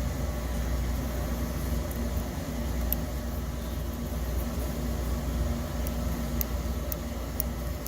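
Household furnace running: a steady low rumble with a faint hum over it, and a few faint ticks.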